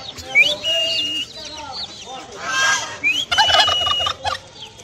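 Poultry calling: a high call that rises and then holds steady, repeated every couple of seconds, with a louder, harsher bird call about three and a half seconds in.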